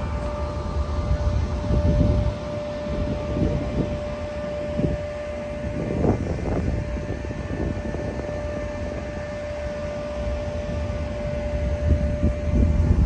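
A steady mechanical hum with a constant whine, holding one pitch and cutting out near the end, over an uneven low rumble that swells now and then.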